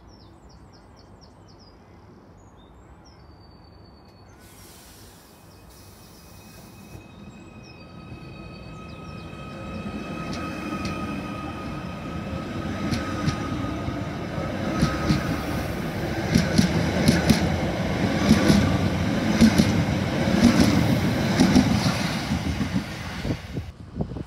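Merseyrail Class 777 electric train pulling out past the platform: a few short beeps right at the start, then a steady traction whine sets in and the rumble swells as it gathers speed. A run of sharp wheel clicks over the rail joints comes as the carriages pass close by.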